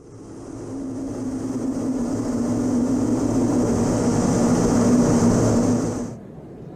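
The twin General Electric TF34 turbofan engines of an A-10C Thunderbolt II, a steady jet noise with a high whine over a low hum. It grows louder over about five seconds, then cuts off suddenly near the end.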